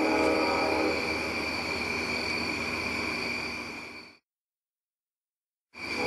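A locomotive air horn sounding a steady multi-note chord, which the recordist takes for a Nathan K5LLA tuned like a new cast P5. The lower notes weaken after about a second while the high tone holds, then the sound fades out about four seconds in. It drops to dead silence and comes back abruptly near the end.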